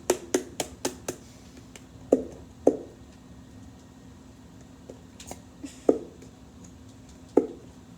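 Sharp taps or knocks on a hard object: a quick run of about a dozen in the first second, then four louder single knocks spaced a few seconds apart.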